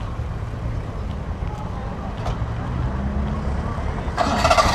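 A car engine idling with a steady low rumble. Near the end a much louder sound with several pitched tones cuts in over it.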